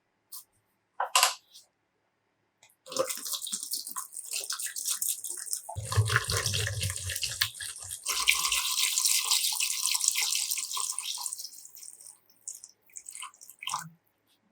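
Water running and splashing, starting about 3 seconds in, with a heavier low gush for a couple of seconds in the middle, then tapering off into drips and small splashes.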